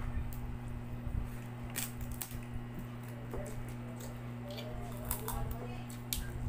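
Cooked crab shell being cracked and picked apart by hand, with scattered sharp clicks and crackles and wet mouth sounds of eating. A steady low hum runs underneath.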